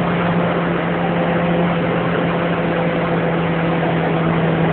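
Suzuki Ignis engine driven hard, holding a steady pitch, heard from inside the cabin over a constant rush of road and wind noise.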